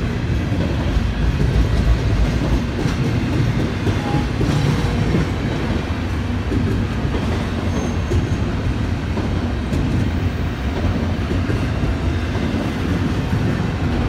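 Freight train of intermodal container cars rolling past, a steady rumble of wheels on the rails.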